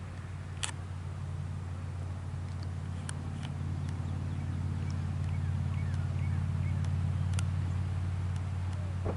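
Low engine hum of a passing motor vehicle, swelling to its loudest about two-thirds of the way through and then easing off. A few sharp clicks and faint chirps sound over it.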